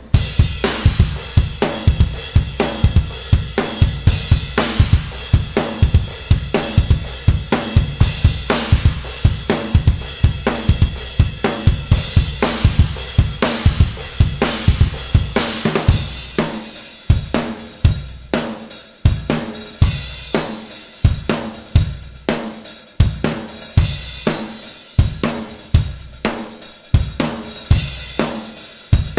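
A Yamaha Stage Custom drum kit with two bass drums and an aluminium snare, played alone in a heavy metal groove. The first half has rapid kick drums under a wash of crash cymbals. About halfway through the cymbals thin out, leaving a sparser, evenly spaced pattern of kick and snare hits.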